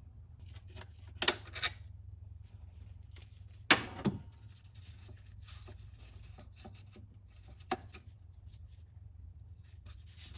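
Socket wrench and metal tools clinking and knocking on engine parts while bolts come off an intake manifold: a few sharp clanks, two close pairs and a single one, among lighter irregular ticks, over a steady low hum.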